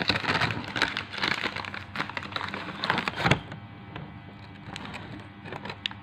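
A plastic packet crinkling and crackling as it is handled, a dense run of crackles for the first three seconds or so, then only a few quieter clicks.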